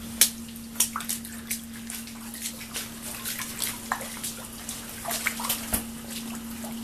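Small pool pump humming steadily while pumping out floodwater, with water dripping and splashing irregularly.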